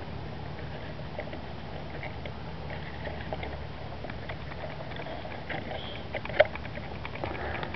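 Handling noise from small plastic parts being fitted: scattered light clicks and rustling over a steady low rumble, with one sharper click about six and a half seconds in.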